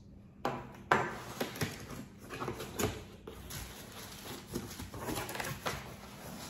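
Cardboard shipping box's taped flaps being pulled open and packing paper rustling, with a few sharp cracks in the first three seconds.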